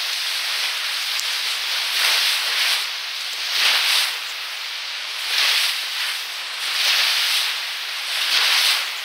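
Thin hiss of surf water washing around the feet, swelling and fading every second or two, heard with no low end at all.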